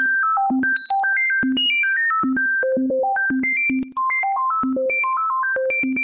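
Synthesizer music made from the prime numbers: a fast, unbroken stream of short single notes jumping unpredictably between low and high pitches, about four or five a second, with one low note coming back again and again.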